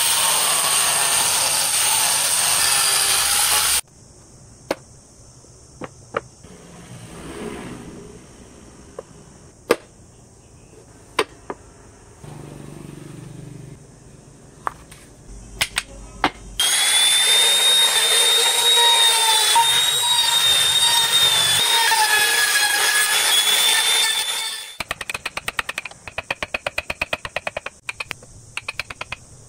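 An angle grinder with a flap disc sands wood with a steady rasp for about four seconds, then stops. Scattered sharp knocks and handling sounds follow. About halfway in, a power tool runs again for about eight seconds with a high whine that wavers in pitch. Near the end come quick sharp taps of a chisel cutting into the wood.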